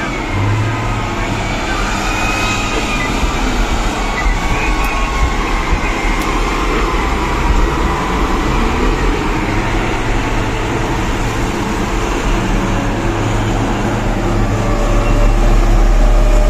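Heavy mining machinery running, heard from inside an equipment cab: a steady engine drone with faint wavering whines, and a deeper rumble that swells near the end as a large haul truck passes close by.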